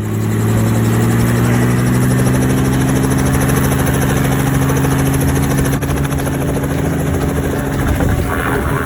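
Helicopter running, a loud steady engine and rotor sound whose pitch sinks slightly.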